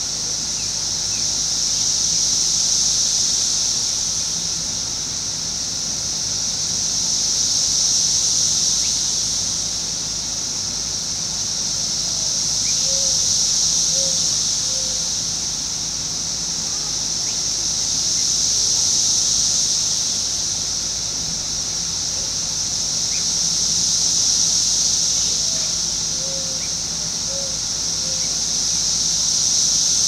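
Chorus of Brood X 17-year periodical cicadas singing: a continuous high-pitched drone that swells and fades in slow waves about every five to six seconds.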